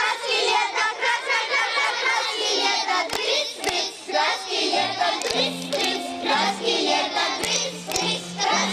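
A group of children singing their squad song together in chorus, with a few short sharp claps. Steady low held notes join the singing about five seconds in.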